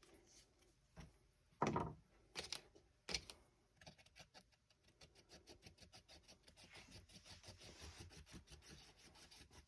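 Faint knocks, then from about four seconds in a quick rhythmic scraping of several strokes a second as two-part J-B Weld epoxy is mixed and worked.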